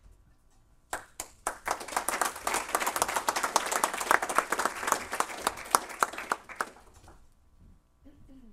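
An audience applauding: a few scattered claps about a second in, building quickly to full applause, then thinning out and stopping near the end.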